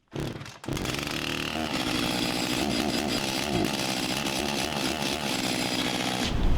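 Two-stroke chainsaw started and running, its engine revving up soon after it fires and then held at high speed. Near the end the sound turns louder and heavier.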